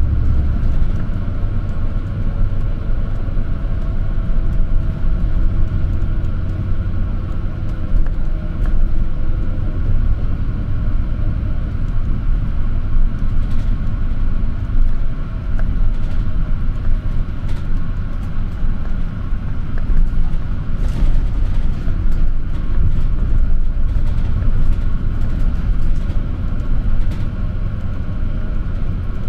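City bus driving, heard from inside the passenger cabin: a steady low rumble of engine and road noise, with a faint steady whine and a few light clicks.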